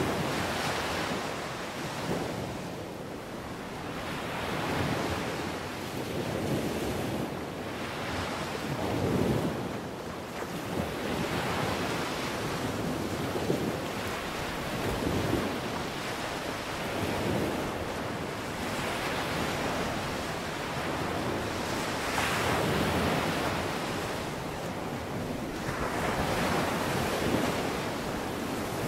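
Ocean surf: waves breaking and washing in one after another, with a rush of wind.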